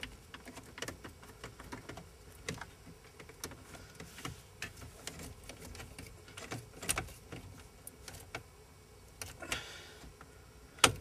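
Scattered small clicks, taps and rattles of a hand tool and wiring as a screw holding a spade-head connector is tightened down, with a sharp click near the end.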